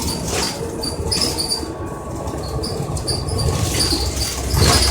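Inside a moving NABI Metro 45C city bus: steady low rumble from its Cummins Westport ISL G natural-gas engine and the road, with short, repeated high-pitched squeaks and rattles from the body and fittings. The noise grows louder near the end.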